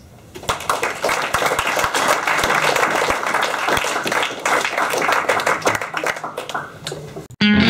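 Small audience applauding, the clapping starting about half a second in and thinning out near the end. It cuts off suddenly and guitar music starts right at the end.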